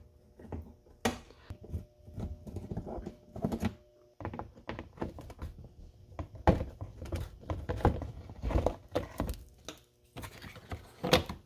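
Irregular clicks and light knocks of a hand screwdriver working small screws out of the bumper cover's edge at the plastic wheel-well liner.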